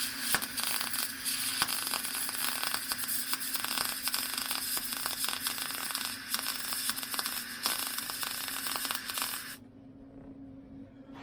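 Craftsman MIG welder with shielding gas and 0.023 wire running a test bead on thin sheet steel: a steady crackling arc that stops abruptly about nine and a half seconds in. A low hum continues underneath.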